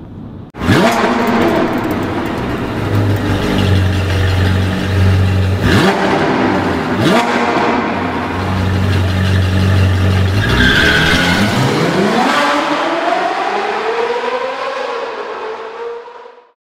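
Sports car engine revving hard as an intro sound effect. It starts suddenly, climbs and drops through several revs, then makes one long rising rev before fading out near the end.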